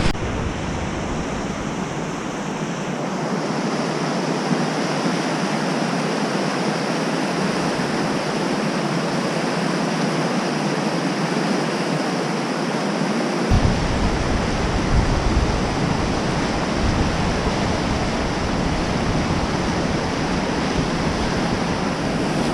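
Steady rush of whitewater rapids on the Madison River. About halfway through, a low rumble joins the water noise.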